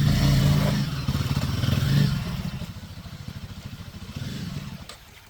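Motorcycle engine running, loud for about two seconds and then growing quieter.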